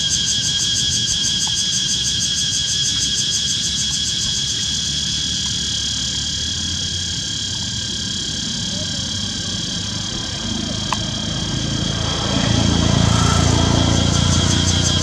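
A steady, high-pitched insect chorus with a fast pulsing texture. About twelve seconds in, the low engine rumble of a passing vehicle comes in and grows louder.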